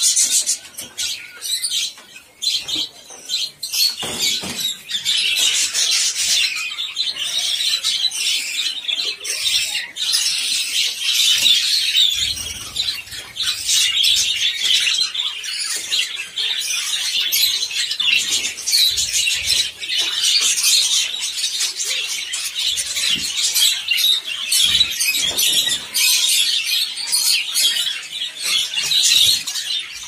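A flock of caged budgerigars chattering: a dense, unbroken mass of high chirps and warbles.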